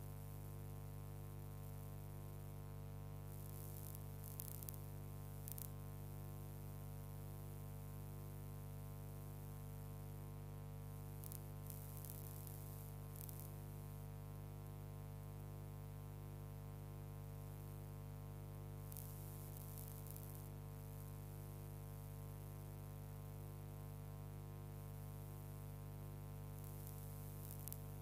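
Steady electrical mains hum with a buzzing edge, unchanging throughout, with a few faint crackles scattered through.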